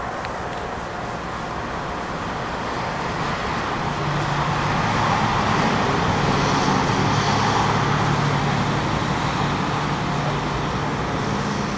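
Diesel railcar's engine running at a steady pace, growing louder over a few seconds as it comes closer, then easing slightly.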